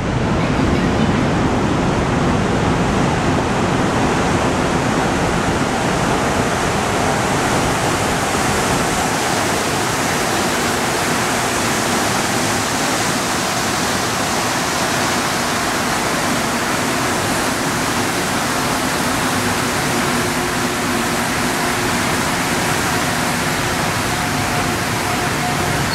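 Rubber-tyred Montreal Metro train rolling into the station alongside the platform, a loud, steady rush of noise. A faint steady hum comes in near the end.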